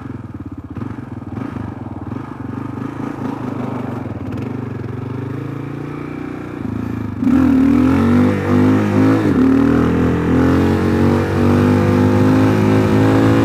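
Kawasaki KLR650's single-cylinder engine through a Yoshimura RS-2 stainless exhaust, running at low revs with a pulsing note. About seven seconds in the throttle opens and the engine gets suddenly louder, its pitch rising under hard acceleration, with a short dip around nine seconds like a gear change.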